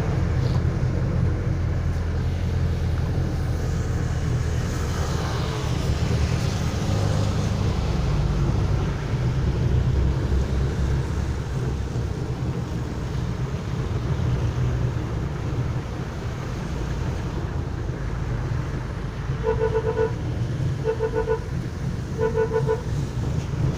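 Jeepney engine and road noise rumbling steadily during the ride, with a vehicle horn tooting three short times, about a second apart, near the end.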